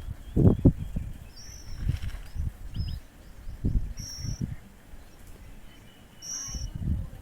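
Birds giving short, high chirps, four or five spaced a second or more apart, over low irregular rumbling.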